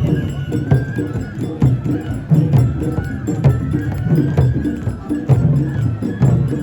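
Traditional Japanese festival music with sharp wooden knocks in a steady rhythm and a thin melody line above.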